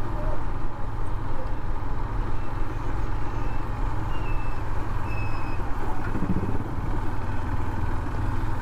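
Steady low rumble of a motorcycle on the move: engine and road noise with wind on the microphone, running evenly without a break.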